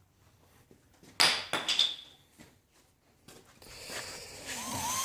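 A few metallic clinks with a high ringing ping about a second in, as brake pads and parts are handled. Near the end a power drill spins up, its whine wavering and dipping in pitch as the brush it drives scrubs metal.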